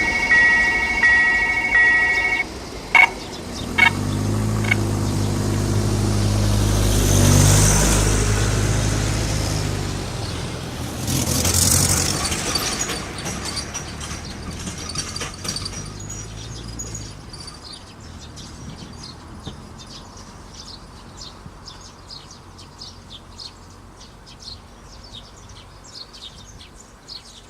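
A level-crossing warning bell ringing in regular electronic pulses, then cutting off a couple of seconds in, followed by a few sharp clunks. A motor vehicle then drives across, its engine drone rising and fading, and a second vehicle passes about four seconds later. Traffic noise dies away into birds chirping.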